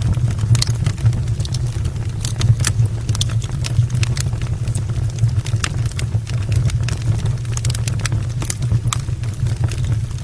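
Wood logs burning in an open brick fireplace, crackling with irregular sharp pops over a steady low rush of the fire.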